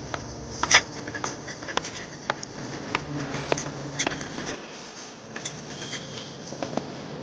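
A dog digging in soil with its paws: irregular scratching with scattered sharp clicks of dirt and small stones.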